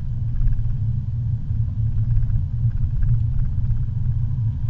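Steady low rumble of a car driving on a paved road, heard from inside the cabin.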